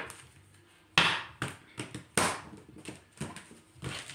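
A deck of tarot cards being shuffled and handled: a run of sharp taps and flicks, about six in a few seconds, starting after a quiet first second.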